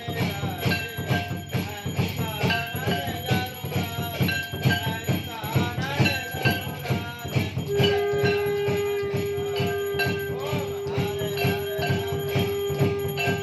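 Hindu devotional aarti to Shiva: singing over a quick, even beat with jingling bells. A long steady held note joins about eight seconds in.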